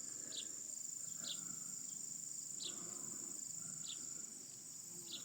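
Summer insect chorus: a steady high-pitched chirring throughout, with short high chirps every second or so.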